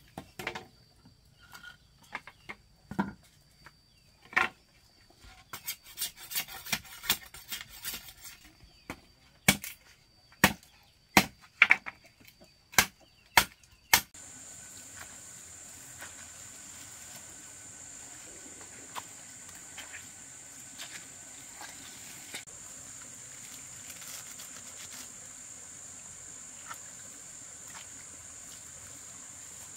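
Sharp knocks on wood, scattered at first, then a run of about eight loud strikes roughly half a second apart that stops suddenly about halfway through. After that comes a steady high chirring of insects.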